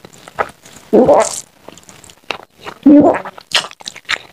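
Close-miked wet eating sounds of a person eating rice and curry by hand: chewing and lip smacks in short clicks, with two louder, longer mouth sounds about a second and three seconds in.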